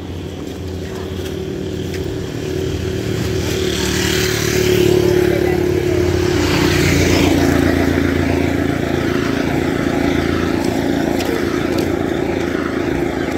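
Motorcycle engine running as it approaches and passes close by, growing louder toward the middle and dropping in pitch as it goes past.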